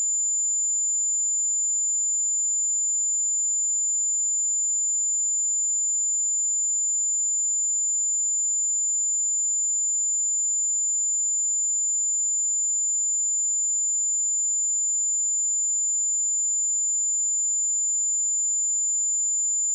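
A steady, high-pitched 7092 Hz sine-wave test tone, one pure unbroken pitch at an even level.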